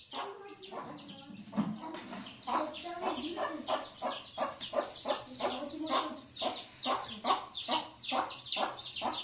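Chickens clucking: a steady run of short, falling calls, about three a second.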